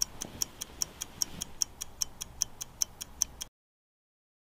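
Clock ticking quickly and evenly, about five ticks a second with every other tick louder, then cutting off abruptly about three and a half seconds in.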